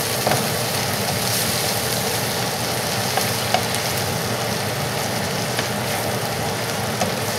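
Diced onions and red pepper flakes sizzling steadily in melted butter in a skillet as a spatula stirs them around, with a few light ticks of the spatula against the pan.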